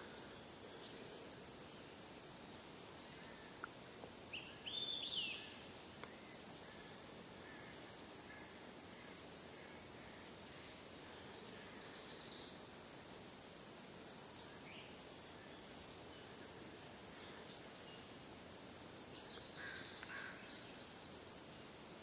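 Wild birds calling in woodland over a steady faint hiss: short high chirps every second or two, with two longer, louder rapid trilled phrases, about twelve seconds in and again near the end.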